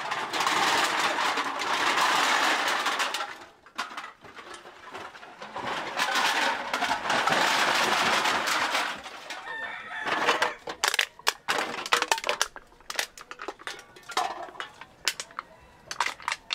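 Empty aluminium drink cans poured out of a cardboard box onto a pile of cans, a dense clattering rush that comes twice and lasts about three seconds each time. After that come many separate sharp clinks of single cans.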